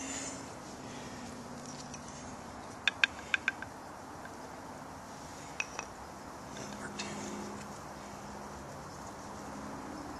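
Light metallic clinks with a short ring: four quick ones about three seconds in, then two softer ones a couple of seconds later.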